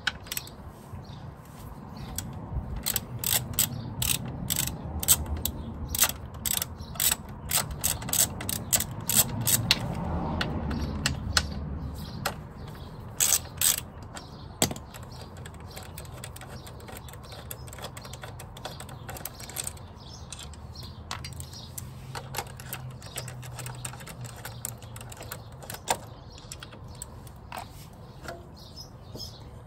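Hand socket ratchet clicking in quick runs as the bolts holding a motorcycle's rear-set footrest bracket are undone. Later it gives way to only scattered clicks and taps.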